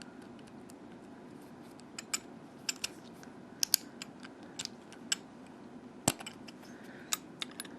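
Irregular small metallic clicks and taps, the sharpest about six seconds in: a key and the hardened-steel body of an Abloy Protec padlock being worked in an attempt to open its cylinder-removal hatch, which does not give.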